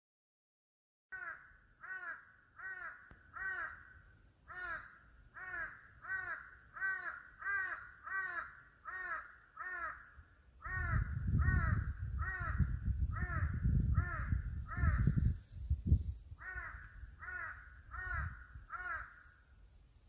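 A crow cawing over and over in a long, evenly paced series, about three calls every two seconds, with short breaks about halfway and about three-quarters of the way through. A low rumbling noise comes in about halfway, lasts some five seconds and ends in a sharp thump.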